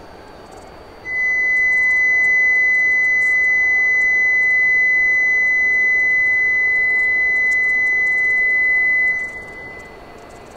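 A single steady electronic beep held for about eight seconds at one high pitch, then cut off sharply: a station platform warning tone sounding beside a stopped E5-series Shinkansen.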